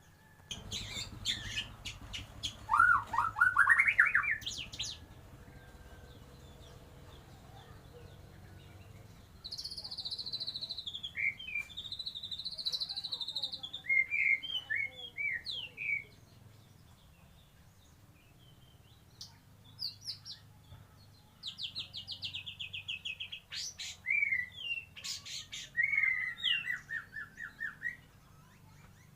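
White-rumped shama (murai batu) singing in three bouts of varied phrases, rapid trills, a rising sweep and whistled notes, its song filled with phrases mimicked from the kapas tembak. A faint steady low hum lies underneath.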